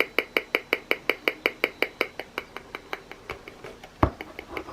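RF meter's audio output clicking steadily at about five clicks a second in response to pulsed Bluetooth microwave signals, growing fainter after about two seconds. A single knock about four seconds in.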